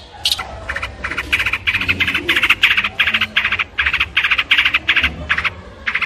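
Long-tailed shrike calling in a steady run of short, rattling chatter notes, about three a second. Each note is a very fast train of ticks, with a brief pause near the end.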